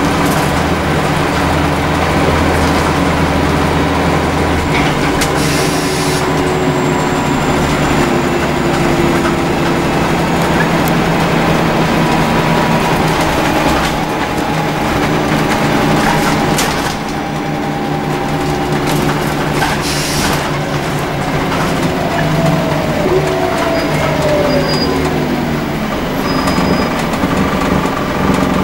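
Scania L94UB single-deck bus heard from inside the saloon while under way: engine and drivetrain running, the pitch shifting as the bus speeds up and eases off, with road noise and a few short knocks from the body.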